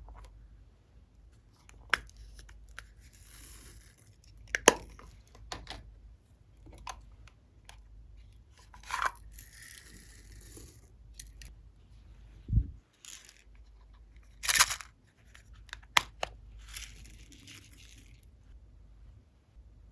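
Slime being handled and stretched by hand: irregular sticky pops and clicks, a few longer hissing pulls, and one low thump.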